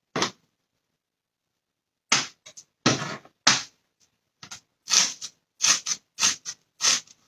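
Kitchen knife chopping onion on a cutting board: a short knock, a pause of about two seconds, then a run of chops, scattered at first and coming about two a second near the end.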